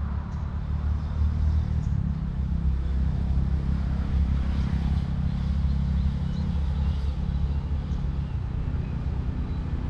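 Diesel locomotive engine giving a low, steady rumble.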